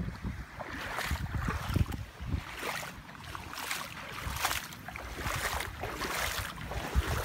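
Bare feet wading through ankle-deep floodwater on a paved street, a splash with each step a little under once a second. Wind rumbles on the microphone underneath.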